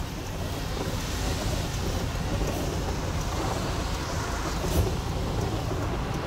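Steady rumbling wash of rain and wet-road noise while moving along a flooded street. Near the end a car passes close, its tyres splashing through the standing water.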